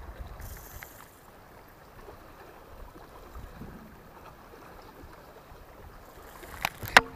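Faint water lapping against a small boat's hull, with light wind. Two sharp clicks sound near the end.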